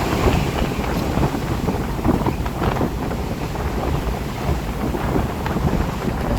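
Gusty wind in a rainstorm, buffeting the microphone as a loud, uneven low rumble with rain hiss above it.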